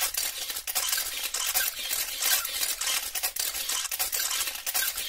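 Dense crackling static, a sound effect made of rapid irregular clicks and hiss with little low end.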